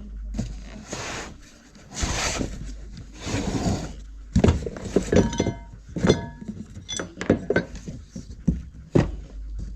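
Parts from an engine in-frame rebuild kit being unpacked and handled. Packaging rustles for the first few seconds, then come several knocks and metal clinks, some of them ringing briefly.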